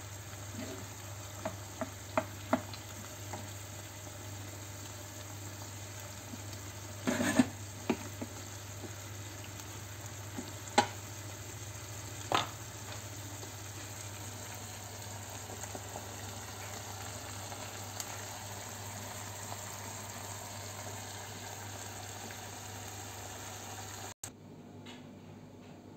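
Minced pork picadillo sizzling steadily in a pan while a wooden spoon stirs it, with a few sharp knocks of the spoon against the pan in the first half. The sizzling cuts off near the end.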